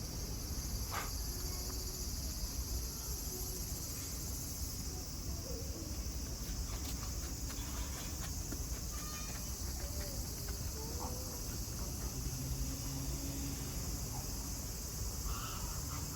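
Steady high-pitched drone of summer insects, with a low background rumble and a few faint short calls.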